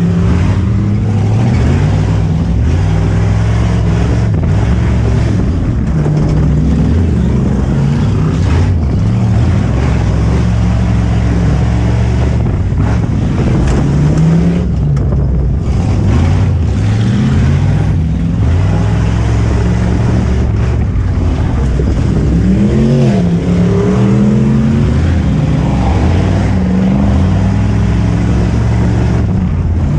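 V8 engine of a 4x4 pickup truck racing on a dirt autocross track, heard loud from inside the cab. It revs hard and its pitch rises and falls repeatedly as the throttle is worked through the corners, dipping sharply a few times.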